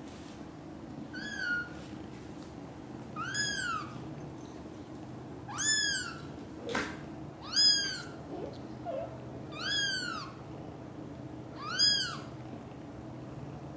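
A young British shorthair kitten mewing six times, about every two seconds, each a high cry that rises and then falls in pitch.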